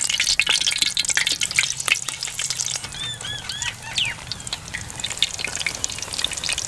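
Rice pakora batter sizzling and crackling in hot oil in an aluminium pot as hand-shaped portions are dropped in to deep-fry, with many sharp pops.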